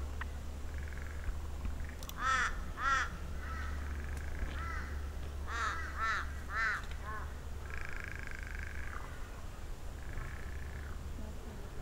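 Crow cawing: harsh calls in two bursts, two about two seconds in and a run of four or five around six seconds in, over a steady low hum and a high buzz that comes and goes.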